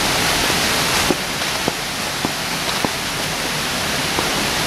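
Stream rushing: a steady, loud rush of water, with a few light clicks over it.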